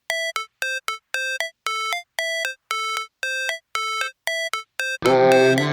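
Music: a sparse electronic melody of short, separate notes, about two a second, with a fuller backing track coming in about five seconds in.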